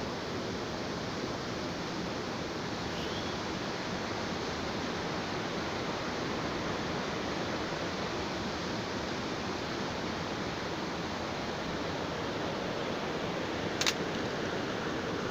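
Waterfall: falling water rushing steadily, with one short sharp click near the end.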